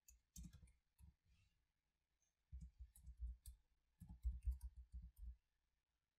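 Faint computer keyboard typing: short key clicks come in three runs, a few in the first second, then two quick rapid runs later on.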